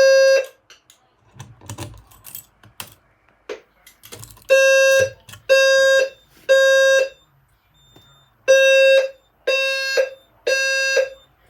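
EST Genesis low-frequency fire alarm sounder sounding a buzzy, low tone of about 520 Hz in the temporal-three evacuation pattern: three short tones, then a pause, repeating. After the first tone it stops for about four seconds, with a few clicks and knocks, then resumes for two full groups of three.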